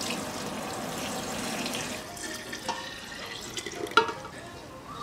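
Pickling sauce of vinegar, soy sauce and water poured from a pot into a glass jar of whole garlic bulbs, a steady rush of liquid that eases after about two seconds into lighter splashing. There is a sharp knock about four seconds in.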